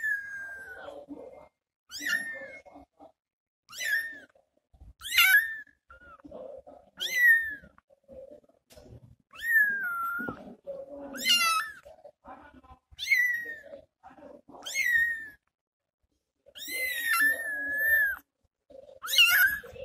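Very young tabby kitten meowing over and over, high-pitched calls every second or two, with one longer, drawn-out call near the end. These are the calls of a kitten left alone while its mother is away.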